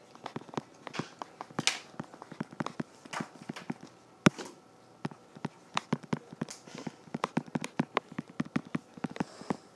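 Stylus tapping and sliding on a tablet screen during handwriting: an irregular run of small clicks, several a second, with one sharper click about four seconds in.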